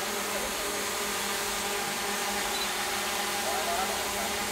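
Several small DJI drones hovering together, their propellers making a steady buzzing hum with several steady pitches layered in it.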